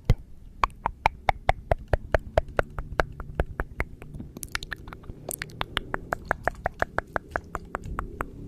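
A rapid run of sharp clicks, about five a second, many with a short hollow ring whose pitch shifts from click to click.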